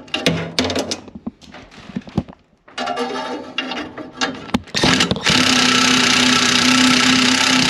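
Power drill-driver running in bursts, backing out the screws that hold a furnace pilot assembly to the burners. The last and loudest run is steady and lasts about two and a half seconds near the end, with clicks and clatter from the screws and metal parts between the runs.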